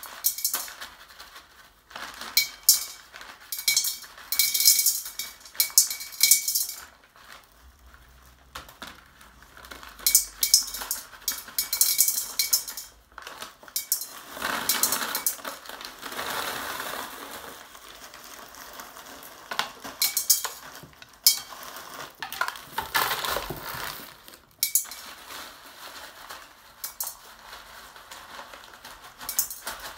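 Small drainage stones poured through a makeshift bag funnel into a large 15 litre glass bottle, rattling and clinking against the glass in repeated bursts, with longer stretches of rushing noise as the stones slide down.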